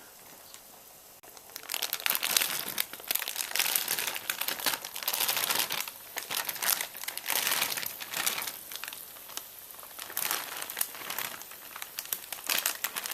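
Plastic packet of casserole vegetable mix crinkling and rustling as it is handled and emptied into the pot. The crinkling comes in irregular spells, starting about a second and a half in.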